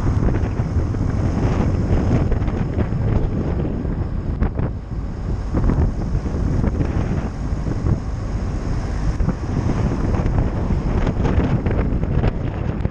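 Wind buffeting the microphone of a helmet camera on a moving motorcycle: an uneven low rumble, with the bike's engine and road noise underneath.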